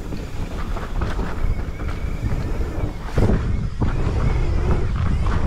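Wind buffeting the microphone of a mountain bike descending dry dirt singletrack, over the rumble of the tyres on the trail and the bike rattling on bumps. A couple of sharper knocks come a little after three seconds in.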